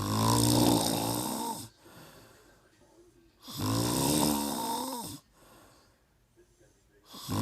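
A person snoring in sleep: two long snores about three and a half seconds apart, each lasting about a second and a half, with the next snore beginning right at the end.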